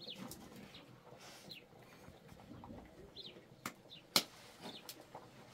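A small bird chirping: short falling notes repeated every second or two. Two sharp clicks come near the end, the second the loudest.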